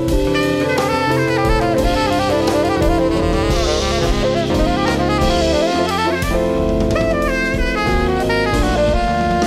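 Live jazz band playing an instrumental: a saxophone leads with a fast, busy melodic line over drum kit, bass and keyboard.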